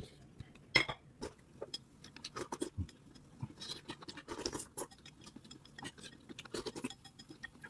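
Chopsticks clicking and scraping against a porcelain bowl as rice porridge is scooped into the mouth, with soft eating sounds in between.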